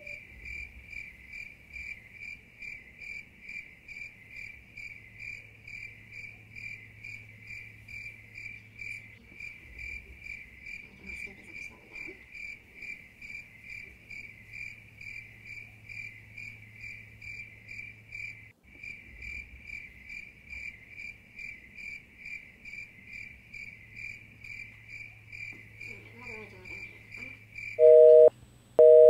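Cricket chirping in an even, steady rhythm, a little over two high chirps a second. Near the end a much louder telephone busy signal cuts in, a two-note tone switching on and off.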